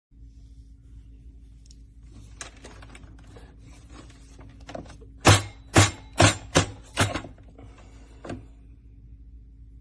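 A series of sharp knocks over a steady low hum, with five loud knocks in quick succession about halfway through and lighter taps before and after.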